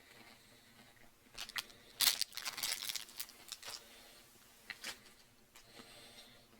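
Crunching as a Cadbury Crispy Crunch chocolate bar is bitten and chewed: a cluster of sharp, irregular crackles, loudest about two seconds in, tapering off by about five seconds.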